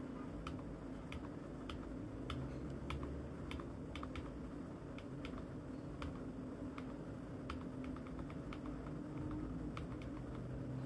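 Slow, irregular typing on a computer keyboard, a few light key clicks a second, over a steady low hum.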